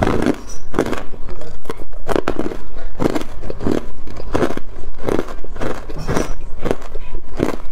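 Hard clear ice being crunched and chewed in the mouth: a steady run of loud, crisp crunches, several a second.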